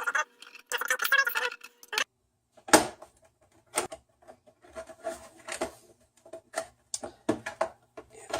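Plastic clicks and knocks from a PlayStation 4's casing being handled and pried apart, in scattered single strikes, with the sharpest knock about three seconds in.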